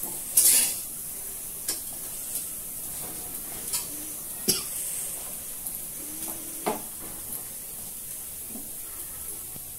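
Steady high hiss with about six scattered light knocks and clinks of metal cookware.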